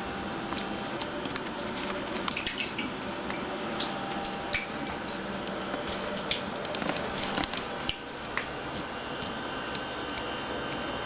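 A Himalayan kitten pawing and splashing at the water in her bowl: irregular small splashes and drips, most of them in the middle of the stretch, dying away about three-quarters of the way through.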